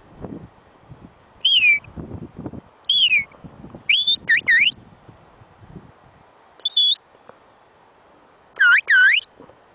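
Shepherd's herding whistle: about eight short, loud whistled notes in small groups. Some fall in pitch, some rise, some dip and rise again, and one holds steady.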